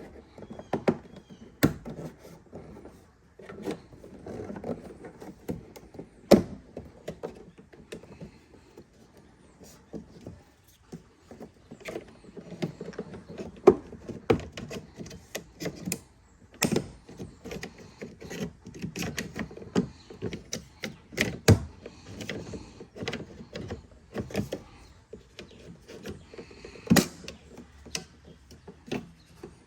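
Plastic trim clips on a Tesla Model X door snapping loose one after another as the trim piece is pulled up and worked free along its length: irregular sharp clicks and pops, with plastic rubbing and handling noise in between.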